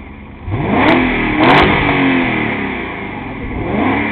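BMW E39 540i's 4.4-litre V8 revved from idle with the car standing still: the pitch climbs from about half a second in through a couple of quick blips and falls away, then climbs again near the end.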